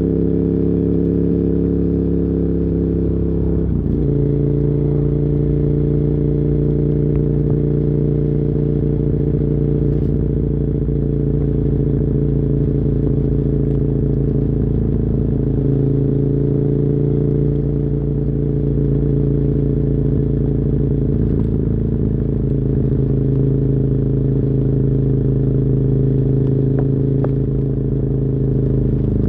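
2007 KTM 990 Super Duke R's V-twin engine with dual Yoshimura carbon exhausts, running steadily under way. Its pitch shifts abruptly about four seconds in and changes a few more times with throttle.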